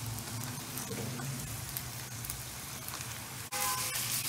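Raw beef mince sizzling in hot oil with fried onions while a spatula stirs and breaks it up; the sizzle turns suddenly louder about three and a half seconds in.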